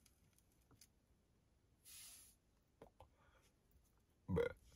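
Quiet stretch with a soft breathy exhale of blunt smoke about two seconds in and a few faint clicks. Near the end comes a short, louder mouth or voice sound, followed by another breath.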